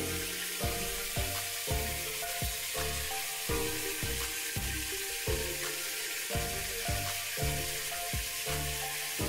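Fish frying in hot oil in a pan, a steady sizzle, with background music that has a regular beat playing over it.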